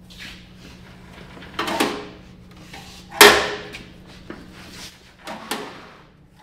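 A series of sharp metal clunks and knocks from a lowered Murray riding mower being pushed along by hand and stopped with its newly fitted hand brake lever; about five knocks, the loudest about three seconds in.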